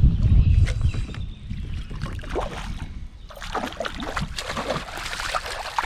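Water splashing and sloshing around a kayak, in short irregular splashes. Wind buffets the microphone in the first second.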